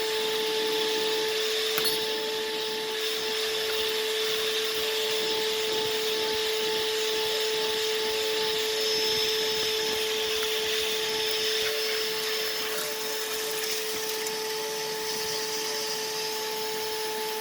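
Vacuum cleaner running steadily with a constant whine, sucking debris out of a car interior.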